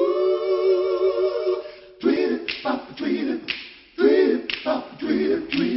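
A cappella vocal music. A voice glides up into a long held note with vibrato, then, about two seconds in, a group of voices sings short rhythmic phrases with sharp clicks on the beat.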